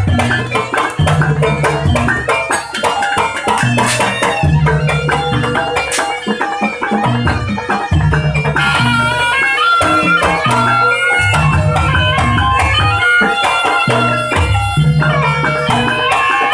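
Jaranan accompaniment music, led by drums beating a repeating low pattern; a reedy wind melody, typical of the slompret, joins it about eight seconds in.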